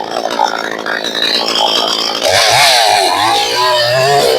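A 62cc clone chainsaw with a 20-inch bar runs at high revs, working through a gum log. From about two seconds in its pitch wavers up and down.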